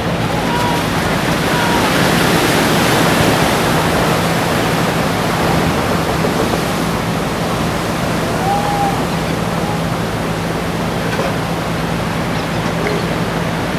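Ocean surf breaking: a steady, loud roar of whitewater that swells a little about two to three seconds in.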